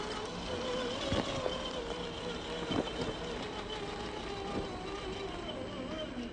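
Electric drivetrain of a 1/10-scale RC4WD Trail Finder 2 crawler with a Reedy 550 16-turn brushed motor, whining as it crawls over rock, the pitch wavering up and down with the throttle. A few sharp clicks come from the tyres and stones.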